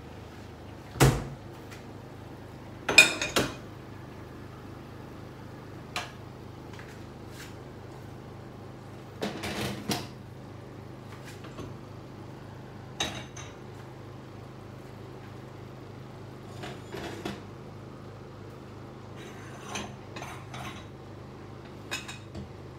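Pots and pans clattering on a gas stove: scattered knocks and clinks of metal cookware and a utensil, the loudest a quick cluster of clatters about three seconds in, over a faint steady hum.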